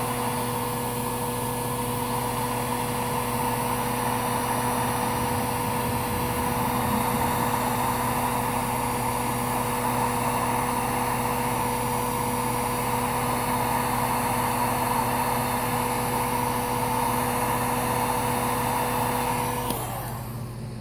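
Heat gun running steadily, its small fan motor humming under a rush of blown air as it shrinks heat-shrink sleeving on a battery cable. The motor winds down and stops shortly before the end.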